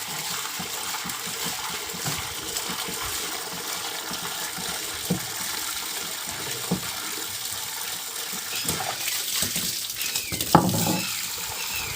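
Water jet from a motor-driven pump washer hissing steadily as it washes the motorcycle's front wheel brake parts, with a few light knocks and a louder spell of spray and clatter near the end.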